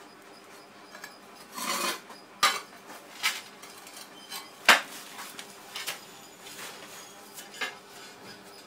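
Ceramic wall tiles being set by hand: about half a dozen irregular clinks and scrapes of tile against tile and tools, with a longer scrape about two seconds in and the sharpest click about four and a half seconds in.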